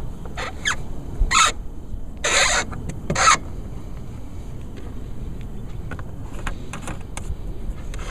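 Plastic filler cap being screwed back onto a Chevy Cruze diesel's diesel exhaust fluid filler neck: four short plastic scraping sounds in the first few seconds, then only a few faint ticks over a steady low rumble.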